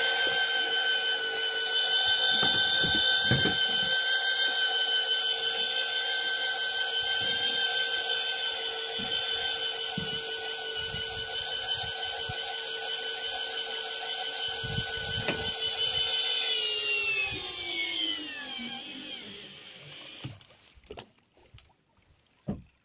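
Electric fishing reel's motor whining steadily as it winds in line from deep water, then slowing with a falling pitch and stopping about 20 seconds in as the catch nears the surface. A few faint knocks follow.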